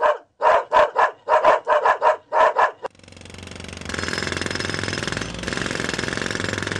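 A dog barking rapidly, about ten quick barks, followed by an engine that starts up about three seconds in, builds over a second and then runs steadily, a bus engine sound effect.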